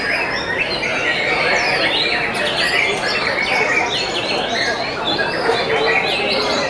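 Many caged white-rumped shamas (murai batu) singing at once: a dense, unbroken chorus of overlapping whistles, trills and chirps.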